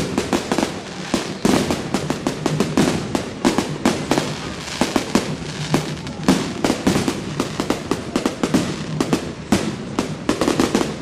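Fireworks going off in a dense run of sharp, irregular bangs and cracks, several a second.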